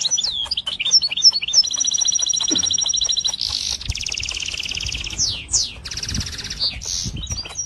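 A small finch chirping and twittering: quick sweeping chirps, a fast pulsed trill held for over a second, then buzzy trills and a couple of falling whistles.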